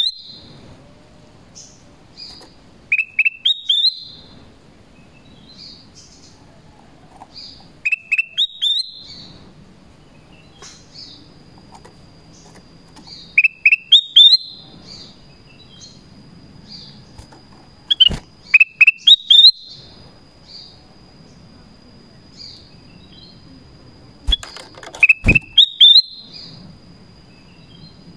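Black-crested bulbul (kutilang emas) giving its calling song: a short loud burst of a few quick, rising whistled notes, repeated about every five seconds. A thin steady high tone runs beneath from about the middle on, and a couple of sharp knocks come with the later phrases.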